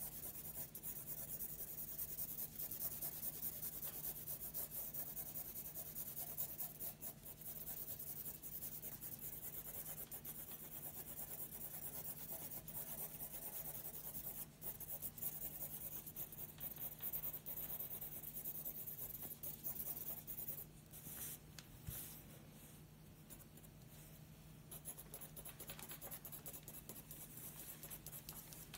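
Graphite pencil scratching on drawing paper in quick, repeated shading strokes. The strokes grow quieter and sparser for a few seconds about three-quarters of the way in, then pick up again.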